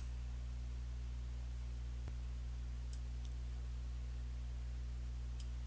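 Steady low electrical hum with a few faint, scattered computer mouse clicks.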